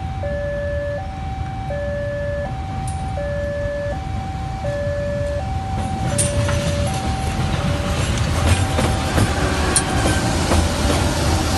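Level crossing warning alarm sounding a two-tone electronic chime, switching between a high and a low note about every three-quarters of a second. From about six seconds in, a KAI CC 201 diesel-electric locomotive passes close by. Its engine and wheel noise grow louder, with a few sharp clicks.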